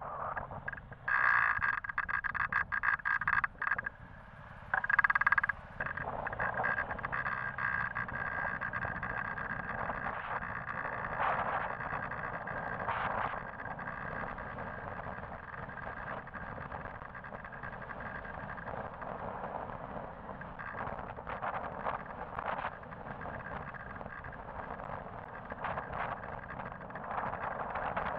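Road and traffic noise picked up by a camera moving along a busy road, with loud crackling bursts during the first five seconds or so.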